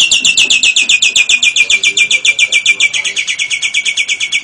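Cage bird giving a long, fast, even trill of sharp high chirps, about ten a second, in the lovebird 'ngekek' style; the pitch steps down slightly about three seconds in.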